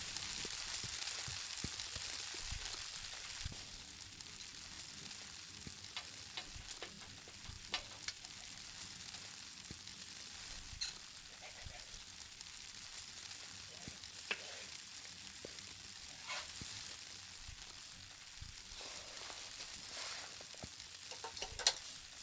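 Food sizzling in a hot pan, a steady hiss that is loudest in the first couple of seconds, with scattered sharp clicks and pops and one louder click near the end.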